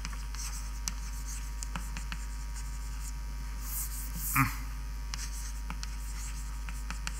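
Writing on a board: scattered light taps and a short stretch of scratching over a steady low mains hum. About four seconds in there is a brief vocal sound.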